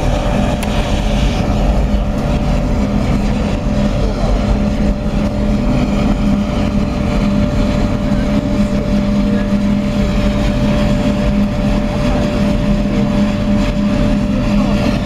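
Biomass sawdust burner firing a long flame: a loud, steady rush of burning and blown air with a constant low hum and a thin whine held underneath.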